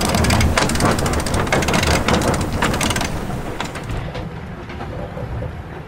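Wind buffeting the microphone and water rushing and splashing along a sailing yacht's hull as it sails fast under way, loudest for the first three seconds and easing after that.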